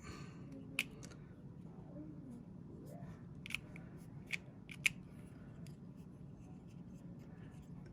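A handful of short, faint plastic clicks as a small toy weapon accessory is handled and its light switch tried; it does not light, the battery thought to be dead.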